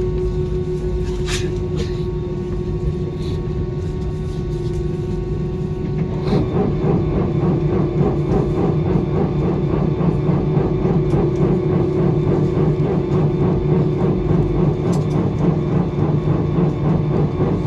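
Airliner cabin noise in flight: a steady drone of the jet engines and airflow with a held tone, turning louder and rougher, with a rumbling rattle, about six seconds in.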